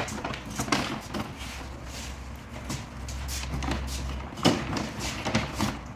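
Paper takeaway bag rustling and crinkling as cardboard food boxes are taken out of it and handled, in an irregular run of crackles with a few louder rustles.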